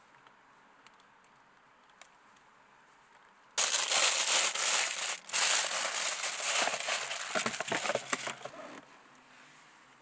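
Clear plastic packaging bag crinkling loudly as a steering-wheel quick-release hub is unwrapped from it. It starts a little over three seconds in, breaks off briefly, and stops about a second before the end.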